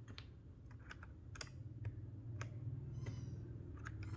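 Mechanical keyboard fitted with tactile Panda-type switches: scattered, irregular key clicks, about ten in all.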